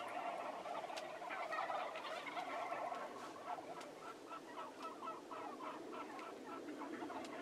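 A flock of wild turkeys calling from their roost trees: many overlapping clucks in a steady, busy chatter.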